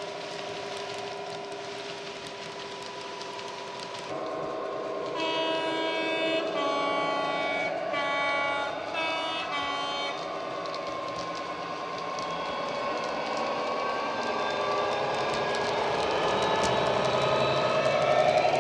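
Model Class 66 diesel sound from an ESU LokSound decoder through a small speaker in an OO-gauge locomotive: the diesel engine running, then the two-tone horn sounded in several blasts a few seconds in. Near the end the engine note rises and grows louder as the locomotive pulls its train closer.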